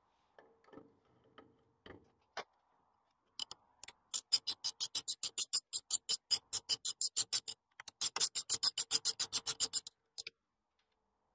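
Socket ratchet clicking in two quick runs of about five clicks a second as it winds a stud, locked with two nuts, into a steering swivel housing, with a short break between the runs. It is preceded by a few light metal clinks of the stud and nut being handled.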